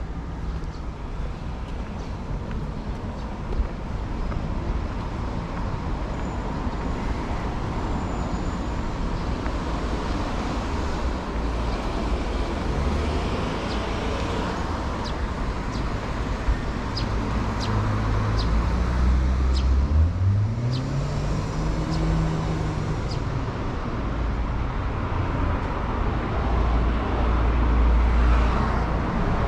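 Road traffic on a city street: cars and heavier vehicles passing steadily. About two-thirds of the way in, one engine rises in pitch as it pulls away, then levels off.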